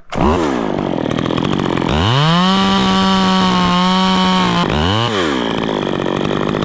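Stihl two-stroke chainsaw making the back cut through a treetop. It gives a quick rev, then climbs to full throttle about two seconds in and holds there for about three seconds. It drops back, revs briefly once more and runs on at lower speed.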